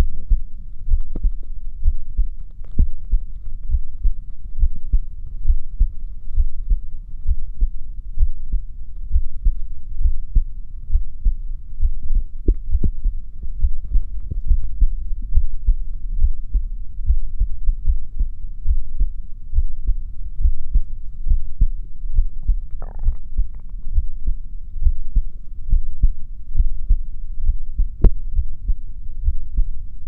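Human heartbeat: a continuous train of low thuds, with a brief higher-pitched noise about two-thirds of the way through and a single sharp click near the end.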